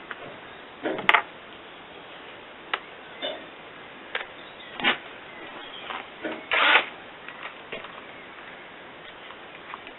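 Scattered short knocks and clicks a second or two apart, with one longer, louder scrape about two-thirds of the way through.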